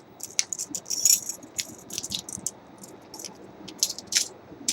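A bunch of metal keys on a keyring jingling and clinking as they are handled, in many short irregular clinks.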